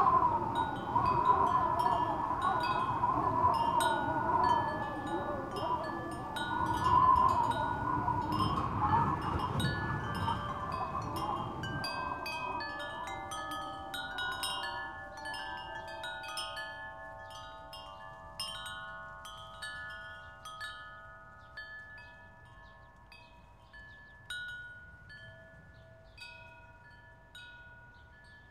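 Wind chimes tinkling, many overlapping ringing notes, over a wavering lower sound that dies away about twelve seconds in; the whole slowly fades out.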